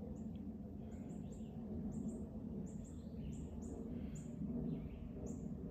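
A small bird's short, high chirps, about a dozen at irregular intervals, each dropping slightly in pitch, over a steady low background rumble.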